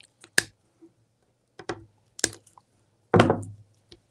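Wire cutters snipping the tail off a plastic zip tie, followed by a few light clicks of handling. A heavier knock about three seconds in fits the cutters being set down on the table.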